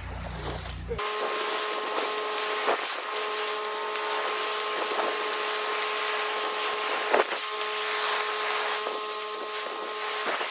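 Pressure washer spraying water on concrete: a steady hiss of high-pressure water with a steady whine from the machine, starting about a second in.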